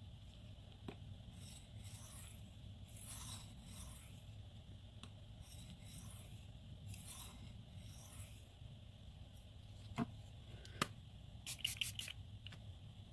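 9Cr18MoV steel knife blade stroked across a wet whetstone, a series of faint scraping passes about one to two seconds apart while working up and trading a burr. A few sharp clicks follow near the end.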